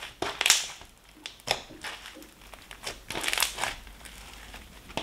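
Thick green slime full of foam beads and sponge bits being squished and kneaded by hand, making uneven spells of crackling and squelching. It is slightly sticky and has thickener being worked into it.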